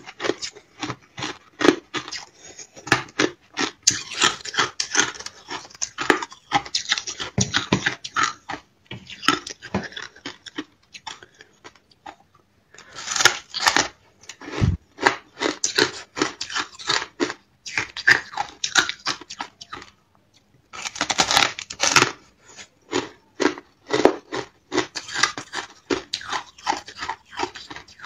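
Thin sheet ice topped with frozen pink shaved ice being bitten and chewed: runs of rapid, sharp cracking and crunching, with two short pauses between bites.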